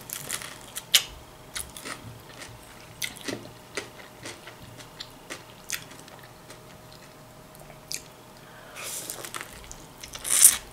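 Close-up mouth sounds of a person biting and chewing fried potato pancakes (draniki): a run of short chewing clicks, with a louder bite near the end.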